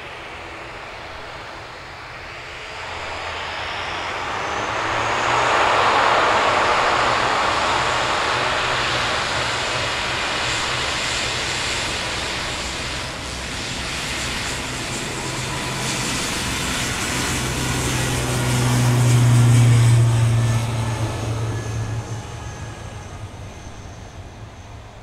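Airbus A350-900's Rolls-Royce Trent XWB turbofans as the jet goes past: engine noise swells over a few seconds with a high whine rising in pitch, holds loud, surges again with a deep hum near the end, then fades away.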